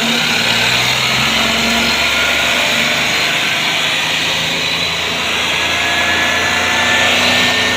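An engine running steadily with a loud, even whirring noise.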